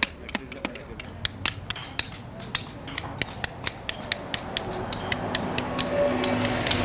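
Hand hammer striking a metal chisel to cut letters into a block of Saint-Maximin limestone. The sharp taps come irregularly at first, then settle into an even run of about four to five a second.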